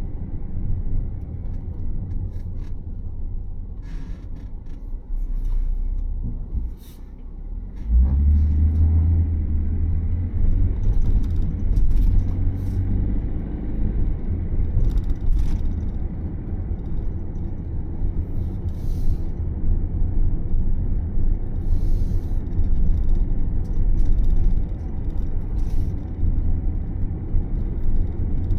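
Camper van driving on a road, heard from inside the cab: a steady low rumble of engine and tyres with scattered small rattles and clicks. The rumble drops briefly about seven seconds in, then comes back stronger.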